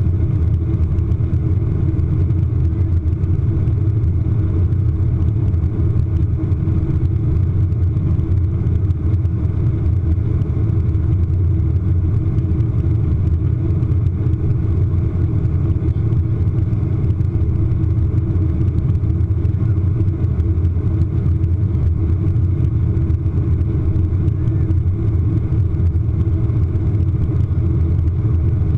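Steady, deep drone of a jet airliner's engines and rushing air, heard from inside the passenger cabin during the climb after departure.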